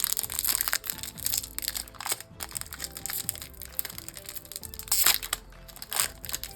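Crinkling and crackling of a trading-card pack's foil wrapper being torn open and handled, in irregular bursts with the loudest about five seconds in, over steady background music.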